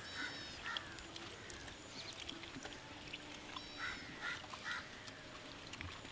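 Faint, scattered bird calls: a few short chirps and calls over a quiet background.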